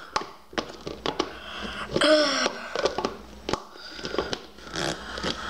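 Crackling and clicking from foam-bead slime being squeezed and handled, with a brief hum-like voice sound about two seconds in.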